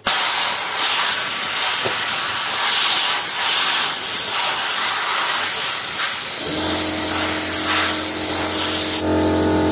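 Parkside PDSP 1000 D5 air sandblasting gun blasting, used without its rubber nozzle attachment: a loud, steady hiss of compressed air and abrasive that starts abruptly. About six and a half seconds in, a small air compressor starts running with a steady hum underneath, and the blasting stops shortly before the end while the compressor keeps running.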